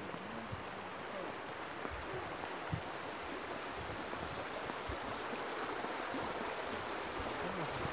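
Creek water flowing, a steady rushing hiss with no pauses, growing slightly louder. Faint voices drift in briefly about half a second in and again near the end.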